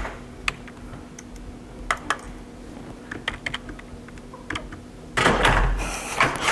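Scattered clicks of typing on a computer keyboard. About five seconds in, a sudden loud burst of laughter.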